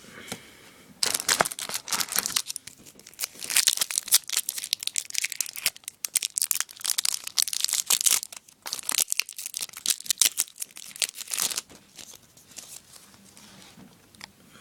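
Hockey card pack wrapper being torn open and crinkled by hand: a dense run of crackling from about a second in, dying down to faint rustling near the end.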